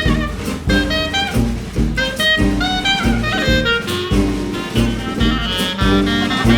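Background music: an upbeat jazzy tune with a saxophone-like melody over a steady bass and drum beat.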